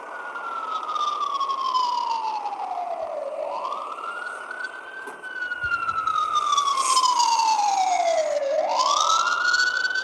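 Emergency vehicle siren in a slow wail: each cycle climbs quickly in pitch, then slides slowly down over about three seconds before climbing again. It grows louder about halfway through.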